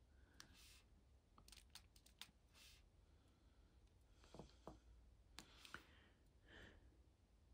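Faint, scattered clicks and taps of a diamond-painting drill pen picking up resin drills and pressing them onto a sticker.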